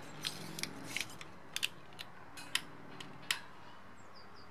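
Metal grill tongs clicking and tapping on a kettle grill's wire grate: a quick irregular run of sharp metallic clicks that stops about three and a half seconds in.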